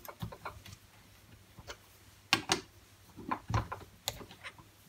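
Scattered metallic clicks and knocks of a chuck key and a small steel part being handled at a metal lathe's chuck while the part is set in the jaws. There is a quick cluster of clinks about two and a half seconds in, and more from about three and a half seconds on.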